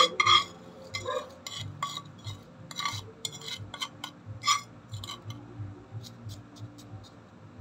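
A metal spoon scraping and clinking against a nonstick frying pan and a ceramic dish while an oily fried mixture is scraped out. The clinks are sharpest about the first second, then come as scattered lighter taps.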